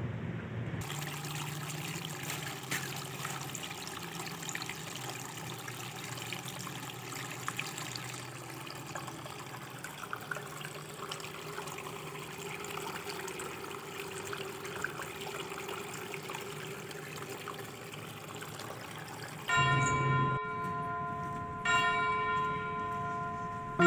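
Water running steadily and trickling over a small tabletop waterfall fountain. Near the end, steady organ-like musical tones come in, breaking off briefly twice.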